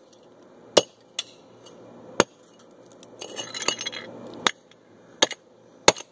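Sharp knocks as a plastic LEGO Darth Vader alarm clock is struck while being smashed apart: about six separate blows at uneven intervals, with a short rattling clatter about halfway through.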